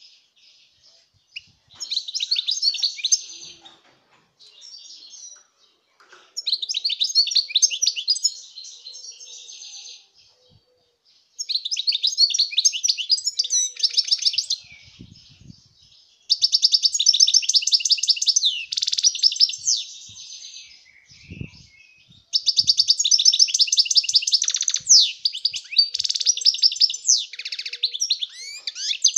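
Wild-caught European goldfinch singing: fast, tinkling, twittering song phrases separated by short pauses. The first phrases last a second or two, and the last two run on for about five or six seconds each.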